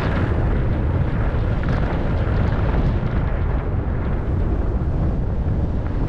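Wind buffeting the microphone of a camera carried by a skier gliding down a groomed run, a steady low rumble, with the hiss of skis running over the snow.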